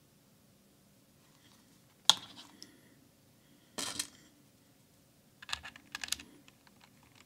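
Clicks and clacks from handling a mechanical keyboard's keys and switches: one sharp click about two seconds in, a short clatter near four seconds, then a quick run of clicks a little later.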